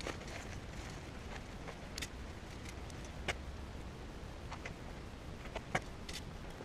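A steady low rumble with about half a dozen short, sharp clicks and taps spaced irregularly, the loudest a little before the end.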